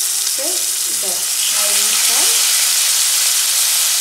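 Marinated chicken pieces sizzling loudly as they fry in hot oil and butter in a pan, the sizzle growing a little denser about a second and a half in.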